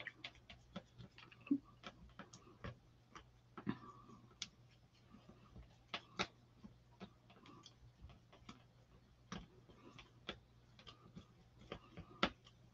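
Faint, irregular clicks and taps of a spatula stirring and scraping thick screen-printing ink on a small square palette, over a steady low hum.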